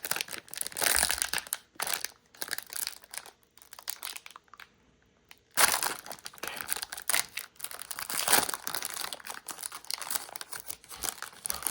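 Hockey trading-card pack wrapper crinkling as it is handled and torn open, in irregular crackling bursts with a short pause a little before halfway.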